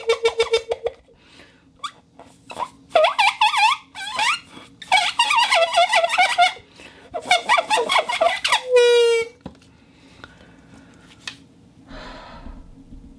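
Bottle whistle blown with a steady, rapidly fluttering tone that cuts off about a second in, then blown again for one short steady note about nine seconds in. Between them come three louder bursts of high-pitched, wavering sounds.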